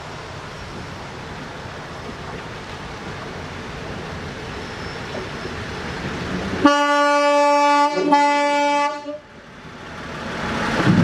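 Esslinger diesel railcar train approaching with a rising rumble, then sounding its horn in two blasts about a second each, split by a brief gap. The rumble of the passing railcars swells again near the end.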